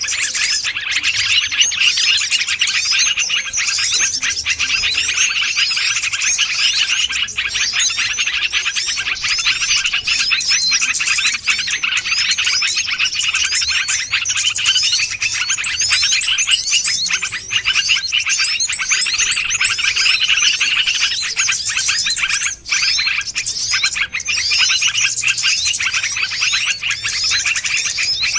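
Dense, continuous chorus of many small birds chirping and twittering rapidly over one another, high-pitched and unbroken: a bird-lure (pikat) recording played to call in small wild birds.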